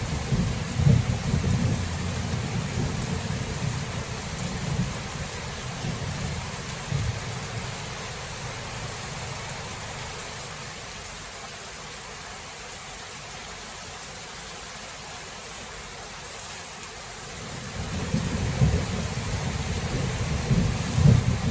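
Steady rain with rolling thunder. The low rumble is strong at the start, dies away through the middle, and builds again near the end with a couple of louder peaks.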